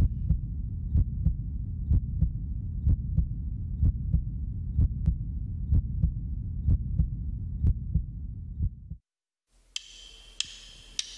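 Heartbeat sound effect: a low double thump about once a second over a steady low rumbling drone, cutting off suddenly about nine seconds in.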